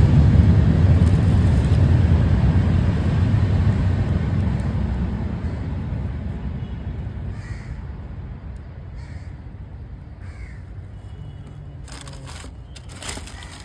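A passing vehicle's low rumble fades away over the first half or so. A crow then caws a few times, and near the end there is a short rustle of handling.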